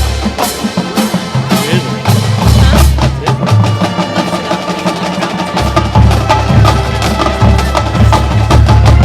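Marching band music: drums and other percussion striking over low held notes.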